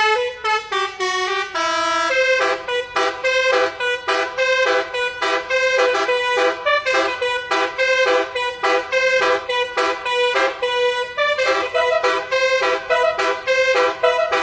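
Telolet bus horn, a multi-tone air horn, playing a fast melody of short staccato notes at about two to three a second.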